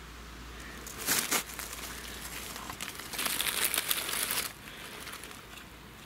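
Dry forest-floor leaf litter rustling and crackling, in two stretches: a short one about a second in and a longer one from about three to four and a half seconds.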